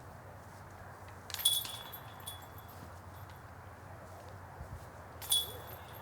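Chains of a disc golf basket ringing as a disc strikes them, twice, about four seconds apart.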